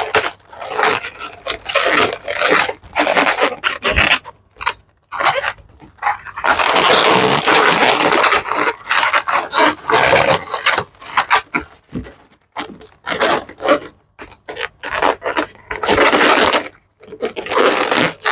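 Inflated latex modelling balloons squeaking and rubbing against each other as they are handled, twisted and locked into a balloon head mask. The squeaks come in irregular bursts, with a longer spell of continuous rubbing of several seconds near the middle.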